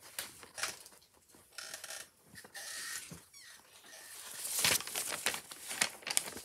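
Writing on a sheet of paper, a light scratching, then louder paper rustling from about four seconds in as the sheets are lifted and turned.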